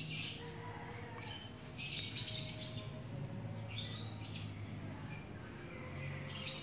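Faint, irregular high-pitched chirps repeating in the background over a low steady hum.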